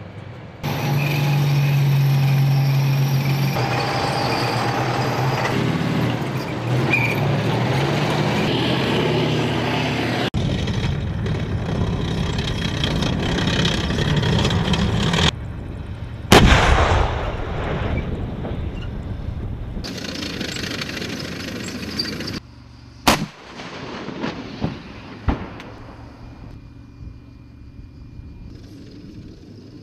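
Military hardware in a string of short cuts: engines and machinery running with a steady rumble, a single very loud gun blast with a long echoing tail about halfway through, and two sharp shots a couple of seconds apart near the end.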